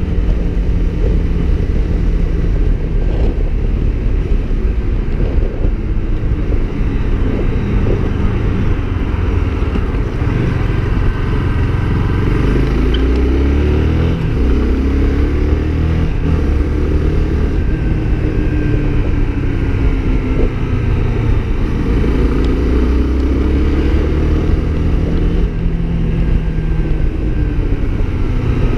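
Honda CB Twister's single-cylinder engine running while riding in city traffic, its pitch rising and falling several times as the bike speeds up and slows, over a steady low rumble.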